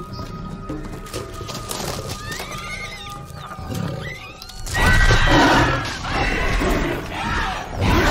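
Film creature sound effects: several shrill animal screeches and cries, sparse at first and then loud and overlapping from about five seconds in, over the film score.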